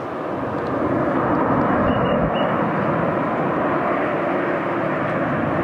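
Jet engine noise from a Southwest Boeing 737's turbofans, a steady roar that swells about a second in and then holds. Two brief high chirps sound faintly over it near the two-second mark.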